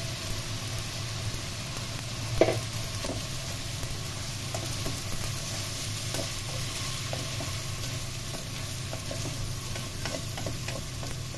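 Rice vermicelli with egg and vegetables sizzling in a stone-coated frying pan while being stirred and tossed with a spatula, with frequent light scrapes and taps on the pan and one louder knock about two seconds in.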